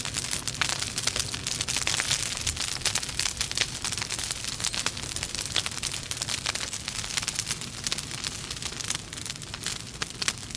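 Burning logs in a fireplace crackling: a dense run of sharp snaps over a steady hiss.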